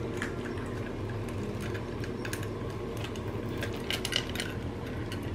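Two kittens eating from stainless-steel bowls: irregular small clicks and clinks of food and teeth against the metal, with chewing, over a steady low hum.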